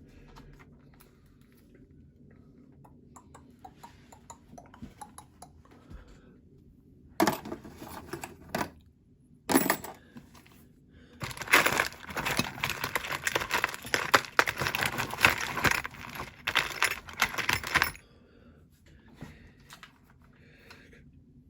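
Small metal drill bits clinking and rattling as they are rummaged through, faint and scattered at first, then in short bursts and a dense clattering run in the second half.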